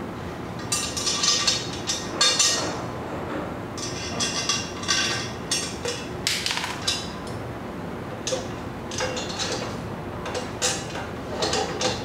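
Metal exhaust pipes and fittings clinking and clanking against each other as they are handled and fitted, in irregular clusters of knocks with a bright metallic ring.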